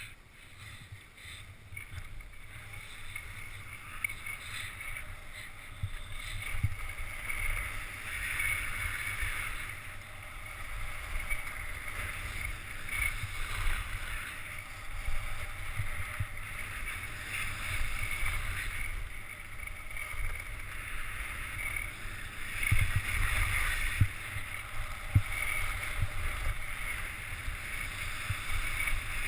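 Skis sliding and scraping steadily over packed, groomed snow on a downhill run, with wind rumbling on the microphone. A few bumps and knocks come about three quarters of the way through.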